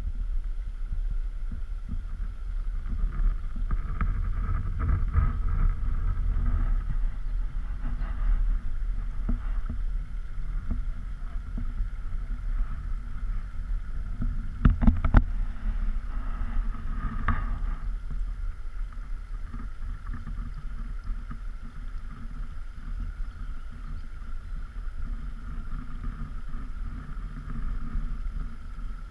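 Kayak moving across calm water, with a low rumble of wind buffeting the camera microphone. A short cluster of sharp knocks comes about fifteen seconds in.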